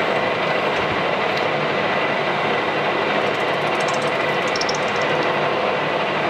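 Metal lathe running steadily with its four-jaw chuck spinning, a continuous mechanical din with a thin steady whine, while the cutting tool faces off the end of a bronze part.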